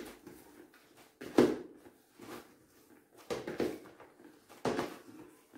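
Hands kneading a crumbly butter-and-flour shortcrust dough in a plastic bowl: dull thumps and scuffs about once a second as the dough is pressed and folded against the bowl, the loudest about a second and a half in.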